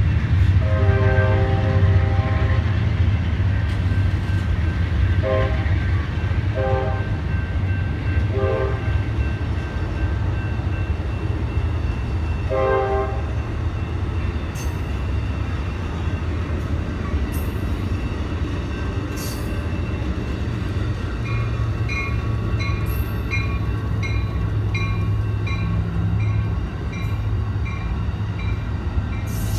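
Amtrak passenger train rumbling past, its horn sounding one long blast and then four short ones spread over the next dozen seconds. Later a bell rings steadily, a bit more than once a second, over the rumble of the cars.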